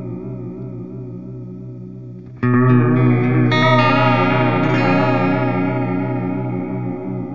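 Clean electric guitar played through an EarthQuaker Devices Space Spiral modulated delay and reverb pedal, its pitch wavering with the modulation. A held chord fades, then a new chord is strummed about two and a half seconds in and rings out with the same wobble.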